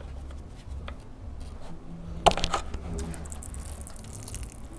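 Light metallic clicks and clinks of hand work on the 13 mm bolt that holds the transmission cooler line to the transmission as it is unthreaded, with one sharper clack a little over two seconds in, over a low background hum.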